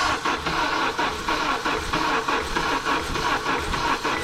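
Honda CR-V engine cranking over on the starter without catching, in an even rhythm of about four to five pulses a second. The mechanic suspects a compression problem and wants a compression test.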